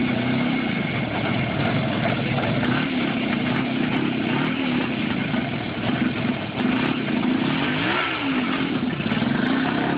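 Motorcycle engine running and revving, its pitch rising and falling, with a quick rev up and back down about eight seconds in.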